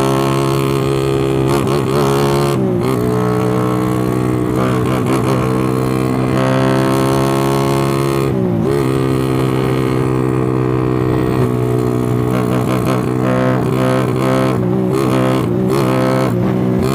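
Tuned motorcycle engine revved with quick throttle blips; its pitch drops and climbs back twice, and a run of rapid blips comes near the end. The throttle response is being tested on a freshly re-jetted carburetor and a newly chosen CDI ignition map.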